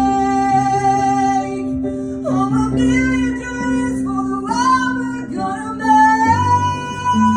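A young woman singing solo into a microphone over guitar accompaniment: a held note, then a phrase that slides up and down, then a long held higher note near the end.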